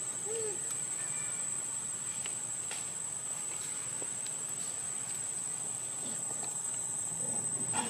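Steady, high-pitched drone of insects. A brief faint call comes about half a second in, and a short faint pitched sound comes near the end.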